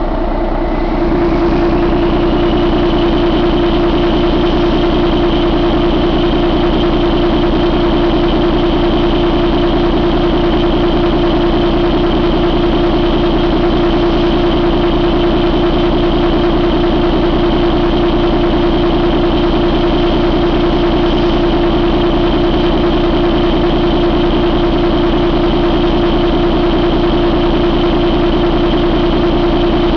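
Volvo D13 inline-six diesel engine running steadily. About a second in it picks up and gets louder, with a high whine rising over it, then holds an even speed.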